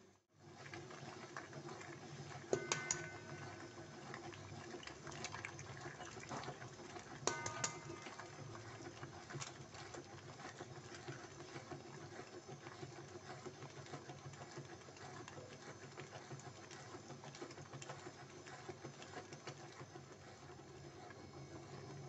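Stand mixer's motor running steadily, its flat beater paddle turning in a stainless steel bowl and creaming beef fat and sugar. Two short, sharp clinks with a brief ring, about five seconds apart.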